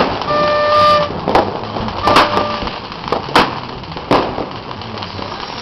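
Fireworks going off: four sharp bangs spread over a few seconds. A horn gives a held blast near the start and a short one about two seconds in.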